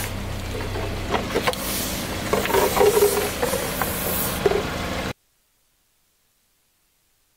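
A car's engine idles as its tyre rolls over and squashes a row of inflatable plastic toys, with crackling, squeaking and a hiss of escaping air. The sound cuts off abruptly about five seconds in, leaving silence.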